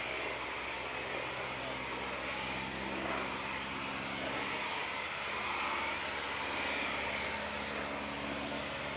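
VL Viima II biplane flying past overhead, its Siemens-Halske Sh 14 seven-cylinder radial engine running steadily at display power.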